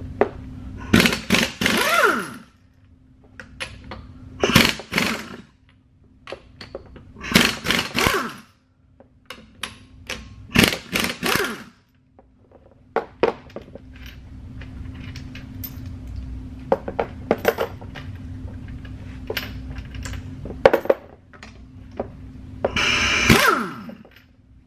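Pneumatic impact wrench hammering 19 mm wheel lug nuts loose in about six short rattling bursts, some winding down in pitch as the trigger is released. Small metallic clicks of socket and nuts come between the bursts over a faint steady hum.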